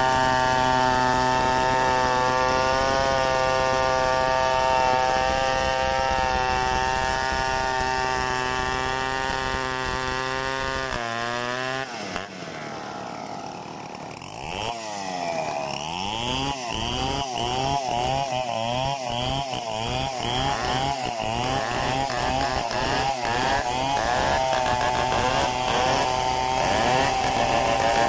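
Stihl 070 two-stroke chainsaw running at high, steady revs while sawing mahogany. About eleven seconds in the pitch drops and it runs lower and quieter for a few seconds. Then it revs up and down repeatedly before settling back to a steady high speed.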